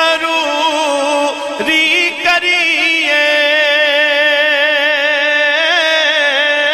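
Male voice singing a melismatic phrase of Punjabi Sufi kalam that settles, about three seconds in, into a long held note with a wavering vibrato.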